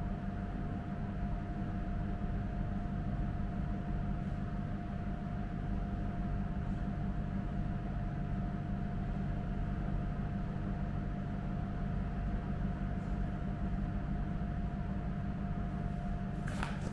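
Steady mechanical hum and hiss with a thin steady whine, unchanging throughout; a short knock near the end.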